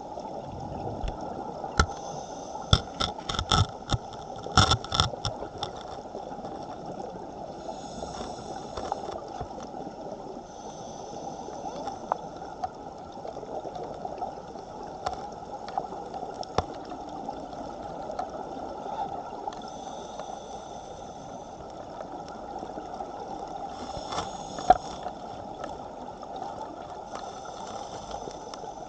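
Underwater sound on a scuba dive in a strong current: a steady rush of water with scattered sharp clicks, a quick cluster of them between about two and five seconds in. Brief higher hissing patches come and go every few seconds.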